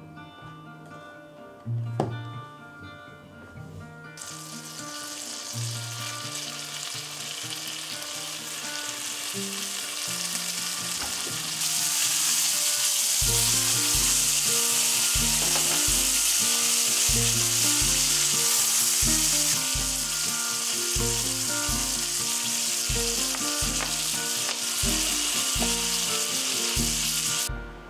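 Pork loin steaks sizzling as they fry in butter and garlic in a frying pan. The sizzle comes in about four seconds in, grows louder about halfway through, and cuts off just before the end.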